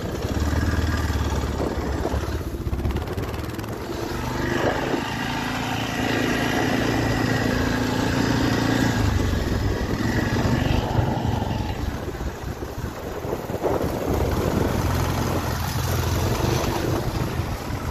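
ATV engine running steadily while it rides over snow-covered lake ice, the engine note shifting up and down a few times with the throttle.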